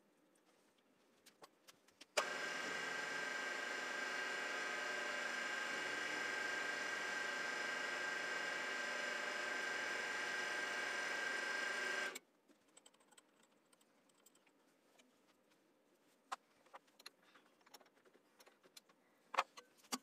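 Grizzly G0755 mill/drill running with a steady motor and spindle whine for about ten seconds, switched on and off abruptly. Faint light ticks of handling come before and after.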